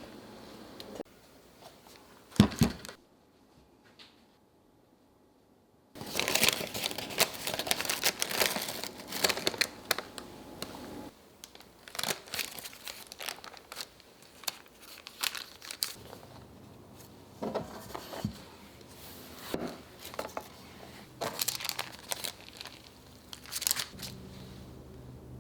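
Crinkly packaging being handled and crumpled in bursts, with a sharp knock about two and a half seconds in.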